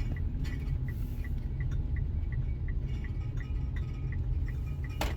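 Low engine and road rumble inside a moving car's cabin, with a turn-signal indicator ticking evenly about three times a second and one sharp click near the end.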